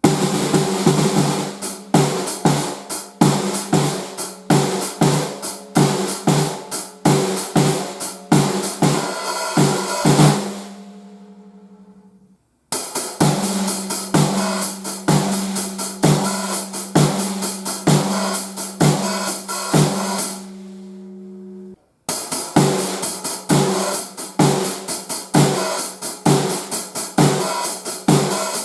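Drum kit playing a steady beat on hi-hat, snare and bass drum, the snare fitted with an Evans single-ply batter head and ringing after each stroke. It is played in three short passages, each letting the kit ring out before a brief silence and the next passage.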